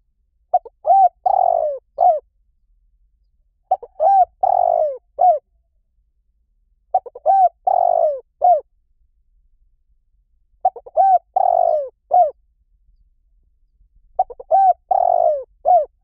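Spotted dove cooing: five phrases, one about every three and a half seconds. Each phrase is a couple of short notes, a longer coo and a short closing note.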